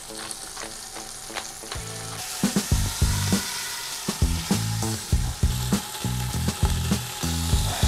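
Bone-in beef shank searing in hot avocado oil in a stainless steel stock pot: steady sizzling, with a few clicks and knocks as the meat is seasoned and turned.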